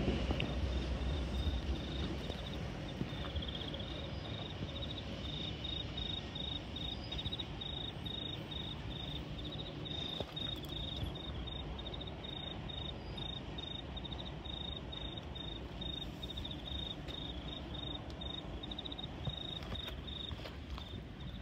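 Crickets chirping in a high, rapidly pulsing trill, over a steady low background rumble.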